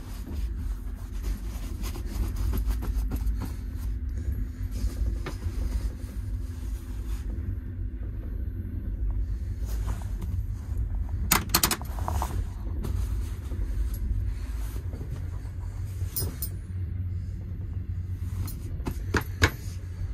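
Steady low rumble of a sleeping car running along the track, heard from inside the compartment. A few short sharp clicks come about 11 s, 16 s and 19 s in.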